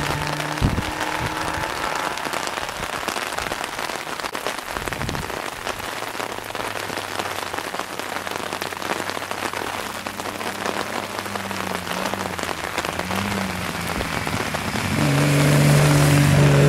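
Steady patter of rain, with a faint rally car engine rising and falling in the distance under it and a single knock near the start. About 15 seconds in, the straight-six of a Datsun Z rally car comes in loud, its note rising as it approaches.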